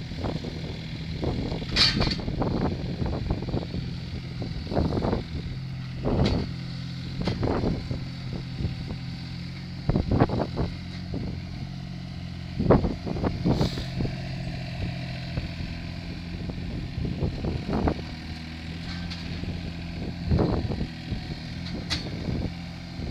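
Small ride-on machine's engine running steadily under load as it pushes a large sawn log along a track, with irregular knocks and clunks every second or two.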